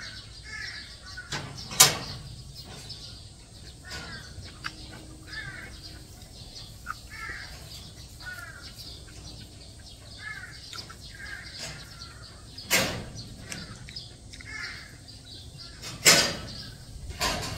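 Birds giving short repeated calls, one every second or so, over a few sharp knocks and bumps, the loudest about two seconds in and another two near the end.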